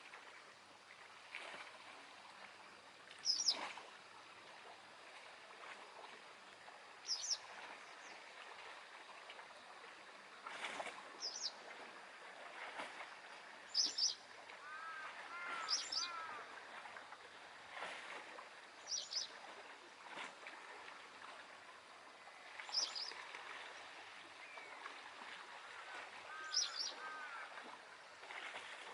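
Small waves lapping in a fishing harbour, a steady soft wash of water, with a bird giving a short high call every three to four seconds. A lower run of short notes, another bird, comes in twice, about midway and near the end.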